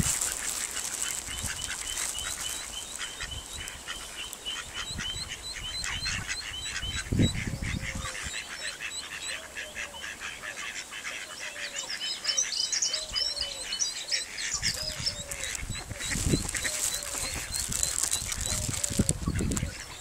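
Mallard duckling peeping rapidly, a long run of thin high peeps, with short lower falling calls from the adult mallards in the second half. A few dull low thumps stand out, the loudest about seven seconds in.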